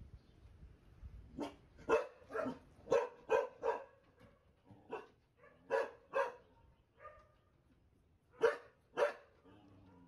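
A dog barking: about a dozen short barks, in bunches of two or three, with short pauses between them.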